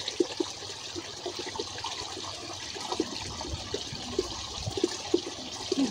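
Water trickling and gurgling in a small paddy-field ditch: a steady murmur with many small scattered gurgles.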